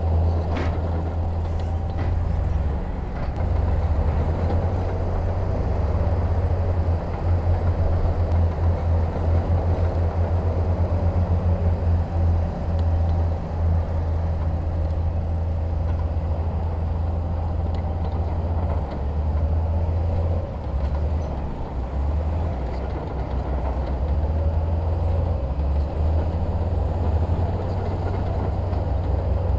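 Diesel engine of heavy earthmoving machinery running steadily: a deep, low throb that pulses unevenly. There are a couple of sharp knocks in the first two seconds.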